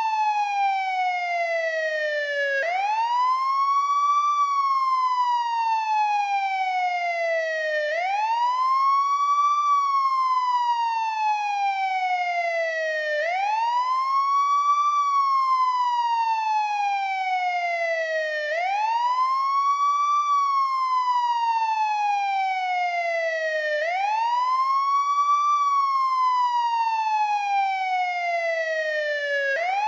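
Old-model NYPD police car siren sounding its wail tone. The pitch sweeps up quickly, then falls slowly, repeating about every five seconds.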